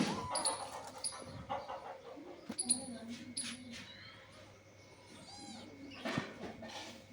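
Animal sounds: short scattered calls and whimper-like noises, with a quick run of high wavering notes about five seconds in.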